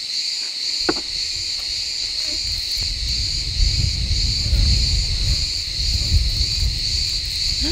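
Insects chirping in a steady, pulsing chorus, about two pulses a second. A single click comes about a second in, and an uneven low rumble joins from about three seconds in.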